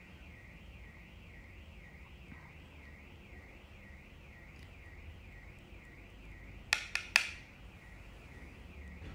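A faint warbling tone that sweeps quickly and evenly up and down without a break, with three sharp clicks close together about seven seconds in.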